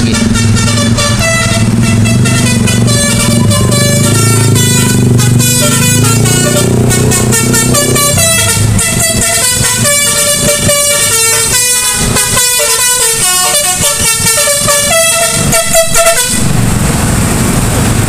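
Bus telolet horn, a multi-tone musical air horn, playing a fast tune of short stepped notes that stops near the end. A low rumble runs under the horn for the first half.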